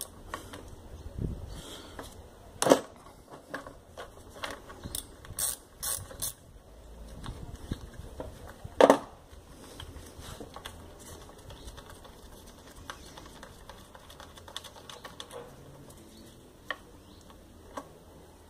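Ratchet wrench clicking and tool clinks while intake manifold bolts are undone, with two louder knocks about 3 and 9 seconds in.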